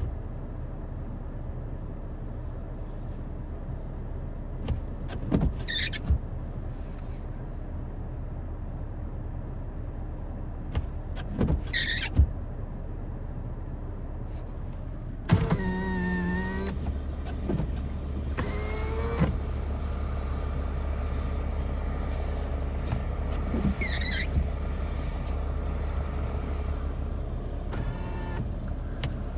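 Large tour bus's engine running steadily, then revved harder about halfway through as the driver tries to get the bus unstuck from deep snow under its own power. A short burst of whining tones comes with the rev-up, then a brief rising whine, and a few short high squeaks are scattered through.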